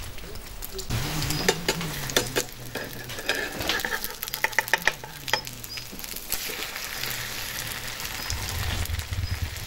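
Food frying in hot oil, a steady sizzle with many sharp crackles.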